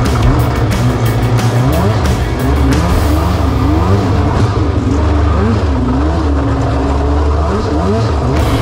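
100-horsepower micro jet boat engine running hard, its pitch repeatedly rising and falling as the boat skims over shallow rapids, with crackling water spray in the first few seconds.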